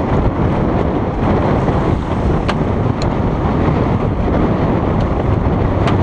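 Wind buffeting the microphone over the steady rush of water along the hulls of a Corsair 37 trimaran sailing fast upwind. A few light clicks sound about halfway through and again near the end.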